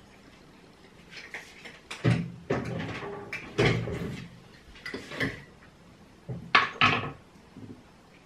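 Kitchen handling noises: a string of knocks, bumps and clatters from a door or cupboard being opened and shut and a mug and crockery handled on the worktop. Two sharp knocks come close together about six and a half seconds in.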